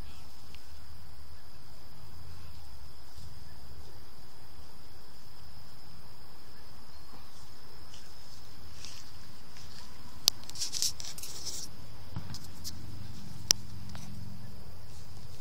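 Steady high-pitched insect drone in the background. There are two sharp clicks, about ten and thirteen seconds in, with a brief rustle just after the first.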